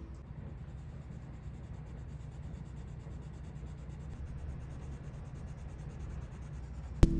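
Colleen coloured pencil scratching on paper as a colour swatch is shaded in. A sharp click about seven seconds in.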